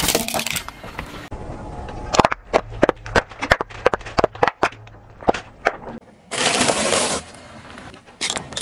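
A car tyre rolling over and crushing small objects on asphalt. A burst of crunching comes at the start as a plastic toy car goes under the tread. Then come a quick run of a dozen or so sharp cracks and pops as laundry detergent pods burst, and near the end about a second of steady hiss.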